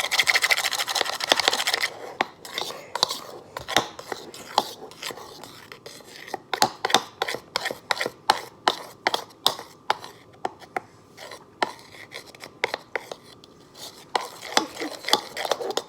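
A utensil stirring a thick, gloppy slime mixture in a bowl: a quick run of rapid scraping for about two seconds, then a long series of separate clicks and scrapes against the bowl, about one or two a second.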